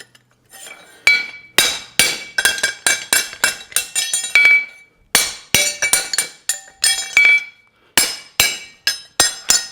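Hand hammer striking a pritchel to open the nail holes of a steel horseshoe on an anvil: a run of sharp, ringing metal blows, about two to three a second, starting about a second in.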